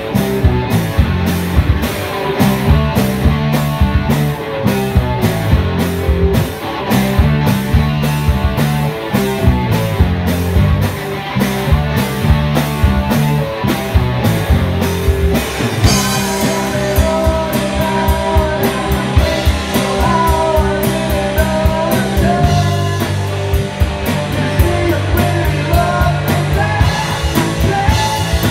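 Live rock band playing: electric guitars, bass guitar and drum kit, with an even cymbal beat. A little over halfway through a higher melodic line comes in over the rhythm.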